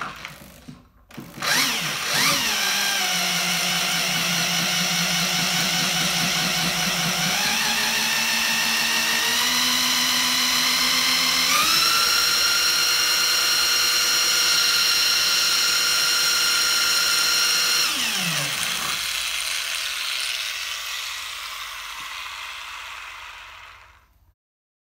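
Handheld power tool spinning the shaft of a three-phase electric motor run as a generator, with a steady motor whine. The whine steps up in pitch three times while the generator lights a bank of LED bulbs, then falls away as the tool is switched off and spins down.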